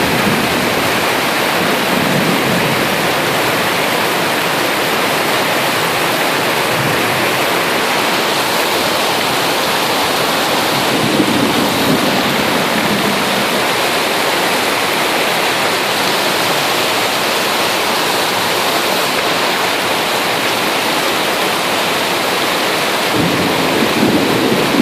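Steady, loud rush of floodwater from a swollen waterway spilling over its bank after extremely heavy rain.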